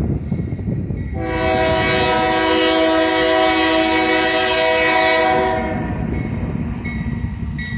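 Union Pacific freight locomotive's air horn sounding one long, steady chord-like blast that starts about a second in and dies away after about five seconds, over a low rumble.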